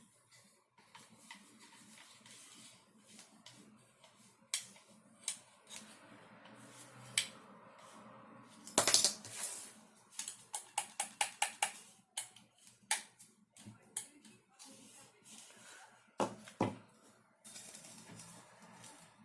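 3D-printed plastic parts of an airsoft gun kit being handled and fitted together: scattered sharp clicks and knocks, the loudest cluster about halfway through, followed by a quick run of about nine clicks.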